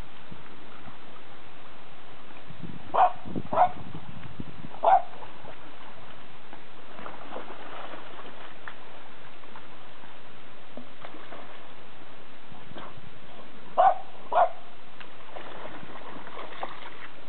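Short dog barks: three about three to five seconds in and two more about fourteen seconds in, over the steady sound of a shallow stream and a dog splashing through the water.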